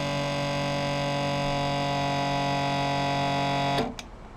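Electric hydraulic pump motor running steadily as it recharges the accumulator, switched on by the old pressure switch through its cleaned relay contacts. It cuts out suddenly near the end with a click as the switch opens at full pressure.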